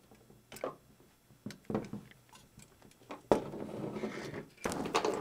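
Small metal clicks and knocks of a brass live steam model locomotive boiler being handled and worked into its chassis frames, with a sharper knock a little after three seconds in followed by about a second of rattling metal parts.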